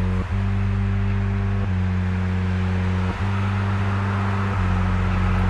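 Low droning soundtrack tones, a stack of steady bass notes that breaks off and restarts about every one and a half seconds, over a steady hiss.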